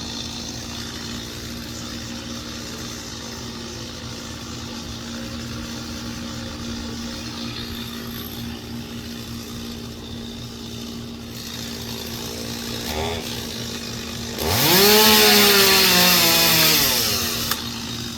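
Machinery hums steadily. About fourteen and a half seconds in, a chainsaw revs up sharply, the loudest sound here, and its pitch sinks over about two seconds before it stops.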